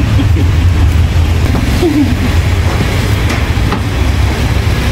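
A steady low rumble, with a few faint knocks of a cleaver slicing beef on a wooden cutting board.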